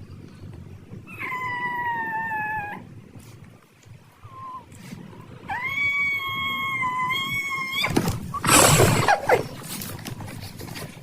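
A pet animal giving two long, high-pitched cries, each lasting one to two seconds, followed about eight seconds in by a louder, harsh, noisy outburst.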